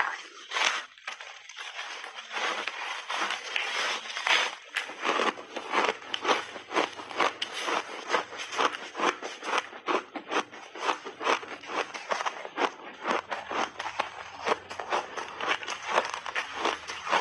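A mouthful of refrozen mixed-berry layered block ice being bitten and chewed close to the microphone: crisp crunches, a few every second.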